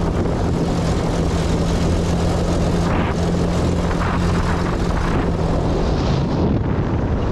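Engine of the buggy running steadily as it drives, a low hum under rushing wind on the microphone; the engine note changes about six seconds in.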